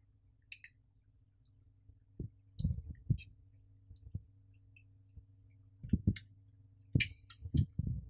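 Irregular clicks and light knocks from a Jonsbo CR-1000 tower CPU air cooler and its clip-on fan being handled and fitted onto a motherboard. They come in small clusters.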